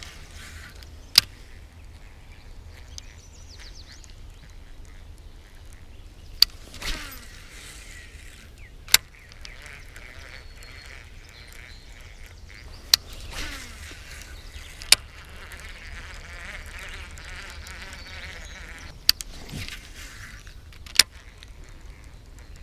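Baitcasting reel in use: several sharp, loud clicks a few seconds apart. Twice a click is followed by a falling whir, and later a steady whirring runs for a few seconds.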